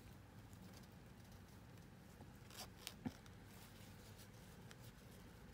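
Near silence with a few faint, short clicks about halfway through: fingers working the teeny zipper down the back of a small doll's dress.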